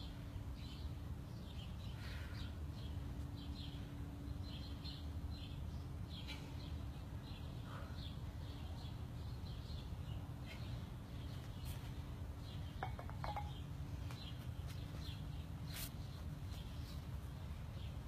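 Small birds chirping faintly and repeatedly over a steady low background rumble.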